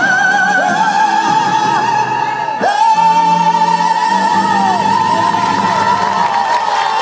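A singer holds one long, high operatic note with vibrato over musical accompaniment, swooping up to a slightly higher pitch about two and a half seconds in and holding it: the climactic final note of the song.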